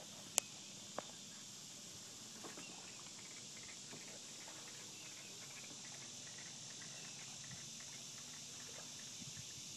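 Quiet woodland ambience: a steady high-pitched hiss with faint scattered chirps. Two sharp clicks come about half a second and one second in.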